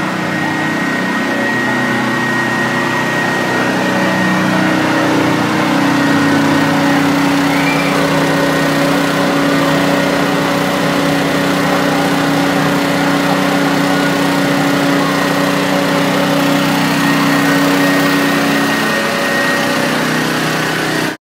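An engine running steadily at one speed, a constant drone with a thin high whine over it, cut off suddenly near the end.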